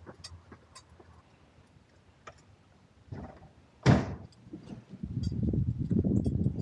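A door bangs about four seconds in, followed by a low, rough rumble that runs on to the end.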